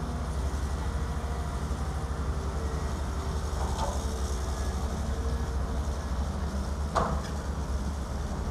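Heavy diesel engine of a working tracked excavator running steadily with a low rumble, and a single sharp knock about seven seconds in.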